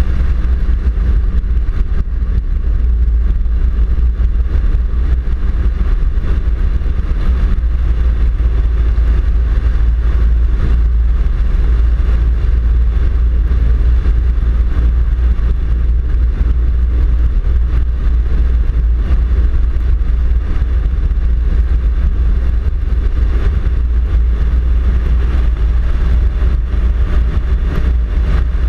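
Four-wheel-drive vehicle driving steadily on an unsealed gravel road: a constant low rumble of tyres on gravel mixed with engine noise.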